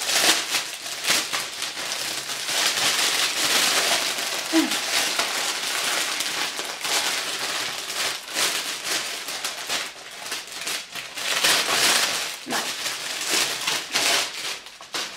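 Thin clear plastic packaging bag crinkling and rustling as it is pulled open and worked off a new backpack, easing briefly a couple of times.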